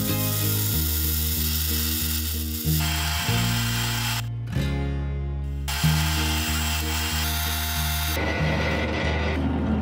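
Background music with a steady bass line, over a bandsaw cutting through a block; the saw's hiss drops out for a moment around three to four seconds in and stops about a second before the music ends.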